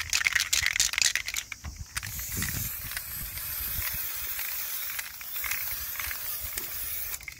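Aerosol spray-paint can: its mixing ball rattles quickly for about the first second and a half, then the can sprays in a steady hiss for about five seconds that cuts off near the end.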